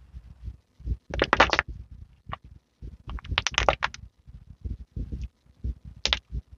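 Hands stretching, folding and squeezing a lump of glossy slime mixed with eyeshadow, lipstick and glitter: wet squelches throughout, with clusters of sharp crackling pops about a second in, around three seconds in, and once near the end.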